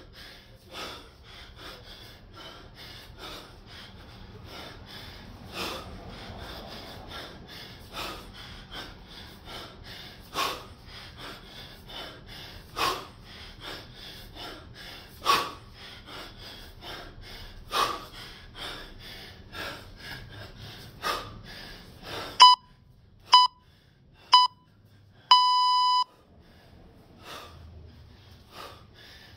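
Hard, rhythmic breathing from kettlebell snatches, with a sharp forced exhale on each rep about every two and a half seconds. About three quarters of the way through, a timer beeps three short times and then once long, a countdown to an interval mark.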